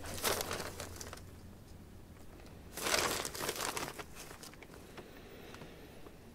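Rustling, crinkling noise in two bursts of about a second each, near the start and about three seconds in, with a few faint clicks between.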